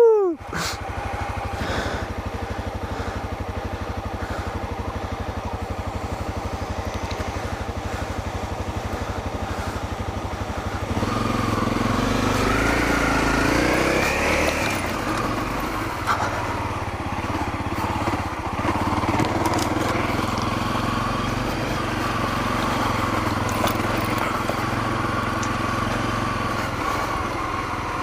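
Honda CRF250L dirt bike's single-cylinder four-stroke engine running while riding off-road. It runs steadily at first, gets louder about 11 seconds in, then its pitch rises and falls as the throttle is worked.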